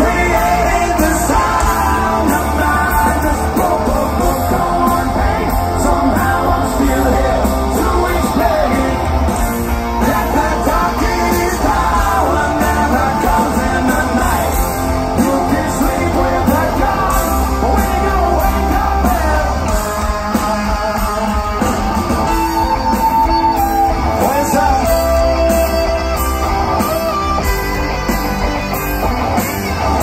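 Rock band playing live through a large outdoor PA, heard from within the crowd: distorted electric guitars over bass and drums, with a wavering lead line on top.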